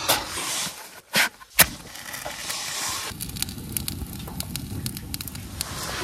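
Wood and charcoal-briquette fire burning in a small stainless-steel fire pit, crackling with a steady hiss and frequent small pops. It takes over after about a second and a half of fuel being laid in, broken by two sharp clicks.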